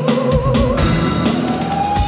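Stage music with a steady drum-kit beat, kick and snare. Over it a long held melodic note wavers with vibrato, then settles on a higher sustained pitch about halfway through.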